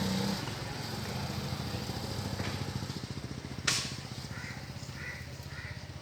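A motorcycle engine idling with a steady low pulsing hum, a single sharp click a little past halfway, and four short high calls near the end.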